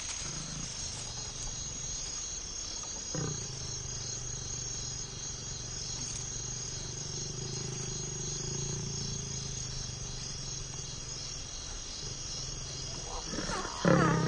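African lions mating: a low, steady growl begins about three seconds in, and a sudden loud snarl breaks out right at the end. Insects chirr steadily throughout.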